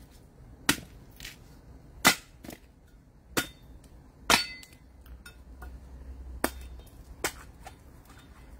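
Repeated sharp chopping strikes of a blade hacking into a green water coconut to open it, about six hard blows roughly a second apart with a few lighter taps between.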